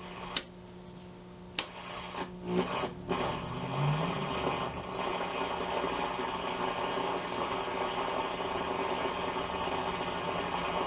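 Hallicrafters S-120 tube radio's speaker giving a steady hum under static hiss, with no antenna connected; the hum is taken as the sign of dried-out filter capacitors that need changing. A couple of sharp clicks come near the start, and the hiss grows louder and steadier from about four seconds in.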